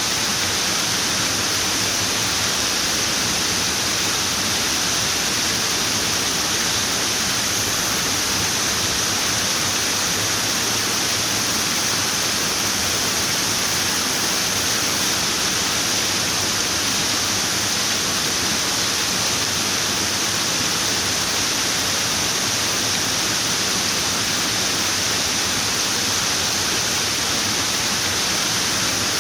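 Running water: a steady, unbroken rush that stays at one level throughout, its hiss strongest in the high range.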